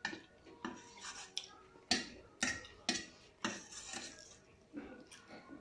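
Close-up eating sounds of pasta taken with a spoon from a stainless steel plate: a run of short, sharp clicks and smacks, about two a second, from the spoon on the plate and from chewing.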